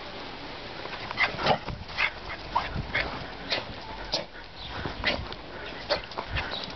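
A small dog giving short, high yips and whines, several times at irregular intervals, as it races around at full speed.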